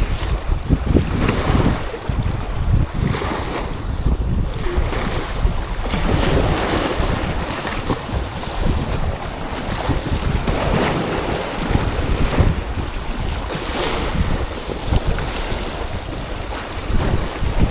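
Wind buffeting the microphone with a heavy low rumble, over the wash of sea waves that swells and falls in irregular surges.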